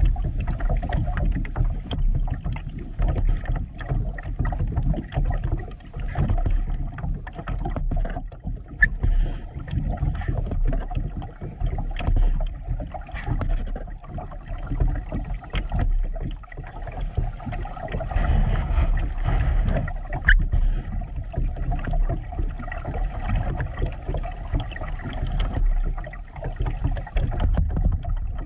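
Water sloshing and slapping against a plastic kayak's hull as it drifts on the creek current, over an uneven low rumble with many small irregular splashes and ticks.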